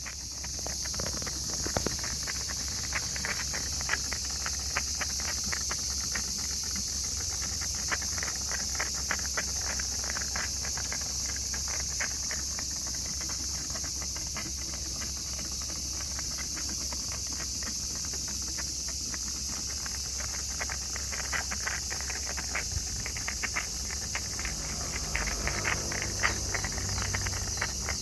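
Mercedes-Benz S124 after its engine has been switched off: irregular ticking and clicking over a steady low hum, the abnormal noise heard after engine stop.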